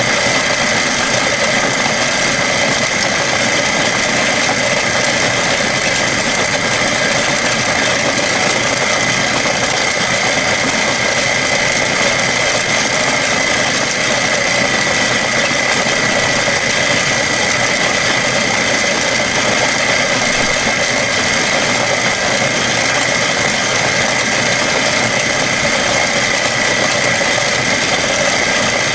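Milling machine running a gold-coated end mill through the aluminium of an AR-15 lower receiver, a steady cutting noise with a constant high whine. The cut is machining a flat seat for a tensioner grub screw.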